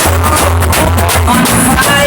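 Loud reggae music with a heavy bass line and singing, played over a big sound system.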